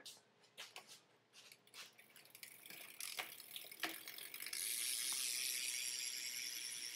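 Rear hub of a BMX bike ticking as the wheel turns: first separate clicks, then from about four and a half seconds a fast, continuous buzz of clicks as the wheel spins freely.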